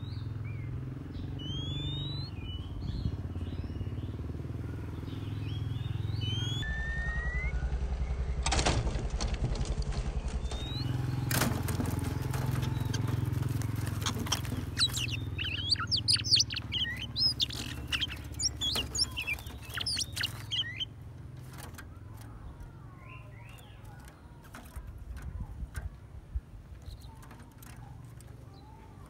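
Oriental magpie-robins calling at a decoy trap cage. Short whistled notes come first, then a dense flurry of quick sharp calls and wing flapping in the middle as the wild bird tussles on top of the cage. A low engine drone runs underneath and fades out about two-thirds of the way through.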